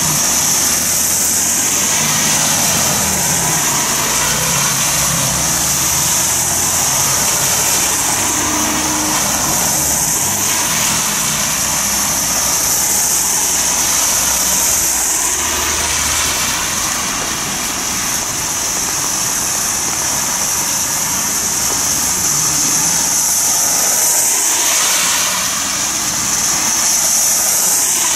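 Cars driving past one after another on a wet road: engines and the hiss of tyres on wet asphalt, with a steady high hiss underneath throughout.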